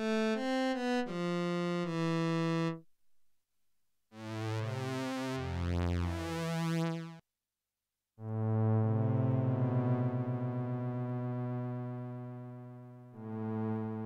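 Arturia OB-Xa V, a software emulation of the Oberheim OB-Xa polysynth, playing preset demo phrases. First comes a quick run of notes, then, after a short gap, a shimmering chord phrase. From about eight seconds in, a held string-pad chord from the ABC-3 Strings III preset slowly fades, and a new chord starts near the end.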